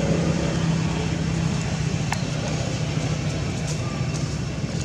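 A steady low motor hum under a broad outdoor hiss, with a few faint clicks about two and four seconds in.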